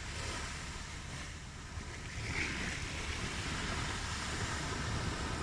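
Ocean waves washing onto a shore, a continuous rush of surf that builds gradually toward the end.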